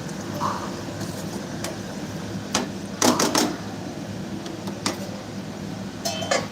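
Steady low hum with a few short clicks and knocks, a cluster of them about three seconds in and a few more near the end.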